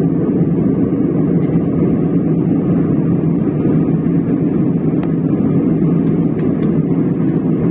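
Airliner cabin noise in cruise flight: the engines and the air rushing past the fuselage make a steady, even low drone that does not change.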